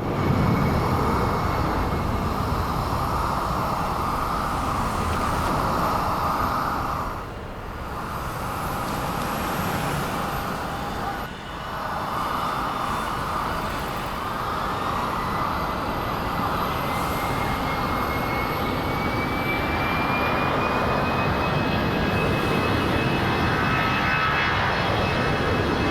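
Airplane engine: a steady, dense drone that dips briefly twice, about seven and eleven seconds in. A high whine rises slowly in pitch through the second half.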